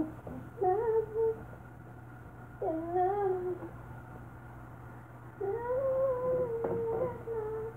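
Wordless, drawn-out vocal moaning or humming, in four long wavering notes; the longest lasts about two seconds, near the end.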